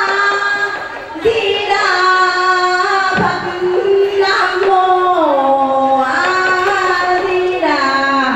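A woman singing a slow ceremonial chant into a handheld microphone, her single voice holding long notes that slide down in steps.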